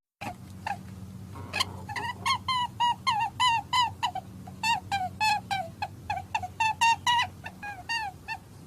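Rapid series of short chirping calls, several a second, each dipping slightly in pitch, over a steady low hum.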